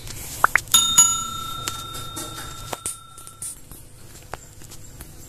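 Subscribe-button overlay sound effects: two quick click-chirps, then a bright bell ding about a second in that rings on for a couple of seconds.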